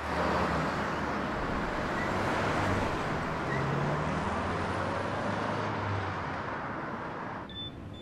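Road traffic: cars driving past on a highway, with a steady rush of tyres on asphalt and a low engine hum. It starts abruptly and cuts off abruptly near the end.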